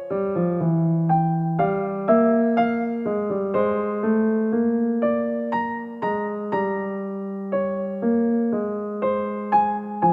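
Background music: a gentle electric piano melody, notes struck one after another and fading.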